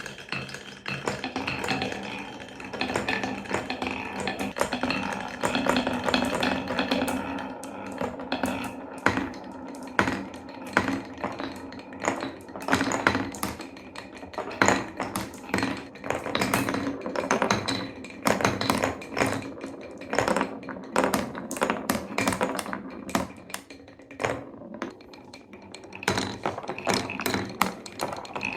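Marbles rolling through the channels of a Cuboro wooden-block marble run: a steady rolling rumble for the first several seconds, then a long run of quick wooden clicks and taps as the balls drop down the block stairs and wave slope.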